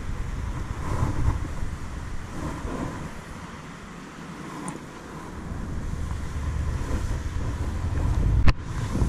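Wind buffeting a body-worn camera's microphone in gusts, with handling noise, and one sharp knock near the end.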